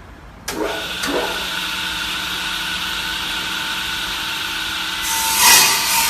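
MJX243 double-end wood cutting saw starting up: its two saw motors spin up one after the other, then run steadily with a high whine. Near the end a louder rasping surge comes as the blades cut into the wood.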